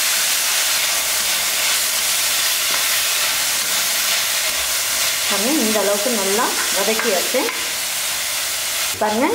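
Manathakkali keerai greens and onion frying in coconut oil in an aluminium kadai: a steady sizzle, with a spatula stirring and scraping the pan.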